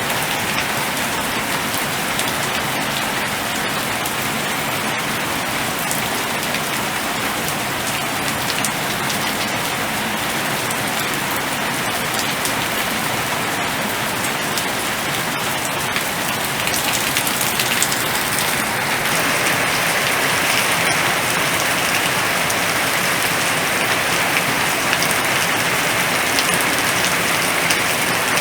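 Steady heavy rain falling in a storm, a continuous even hiss that grows somewhat louder and heavier about two-thirds of the way through.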